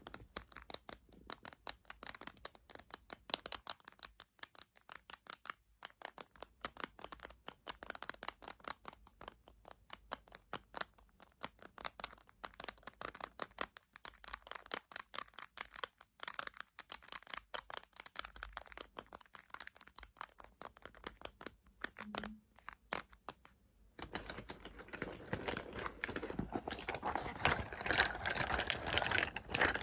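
Fingernails tapping rapidly on cosmetic containers, a quick run of light clicks. About three quarters of the way through, it changes to a louder, continuous scratching, crinkly sound.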